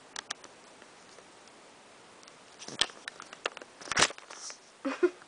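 Scattered taps, scrapes and rustles of a playful cat pawing and batting at a handheld camera, with the loudest knocks about three and four seconds in as she hits it up close. A brief voice-like sound comes near the end.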